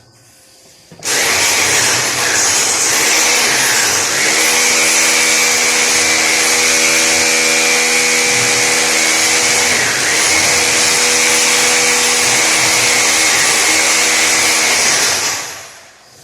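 An electric power tool's motor running steadily with a high whine, starting about a second in, dipping briefly midway, and winding down near the end.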